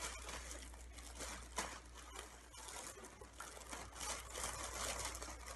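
Cloth bag rustling and scratching as hands rummage inside it, feeling for an object: irregular soft crackles and brushing throughout.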